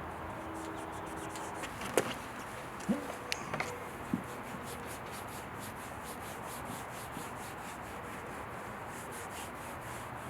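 Foam applicator block rubbed back and forth over faded plastic exterior trim, working in black trim restorer, in quick, even strokes. A few light knocks and clicks come about two to four seconds in.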